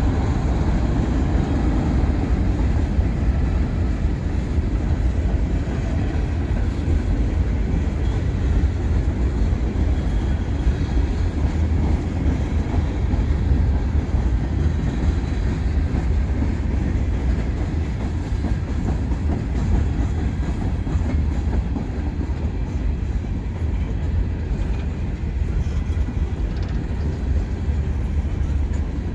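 Freight train rolling past, its wheels clattering steadily on the rails.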